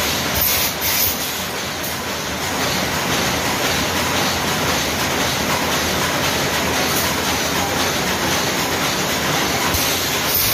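Steady mechanical din of workshop machinery running, an even rumbling noise with a few brief hissy flares about half a second in.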